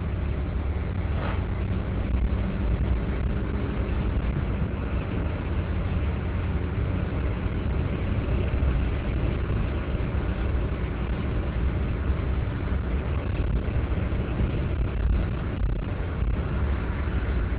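Steady low rumble of a car on the road, heard from inside the cabin: engine and road noise.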